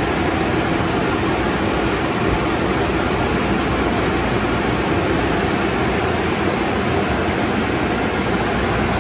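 Car wash tunnel dryer blowers running: a loud, steady rush of air with no change in level.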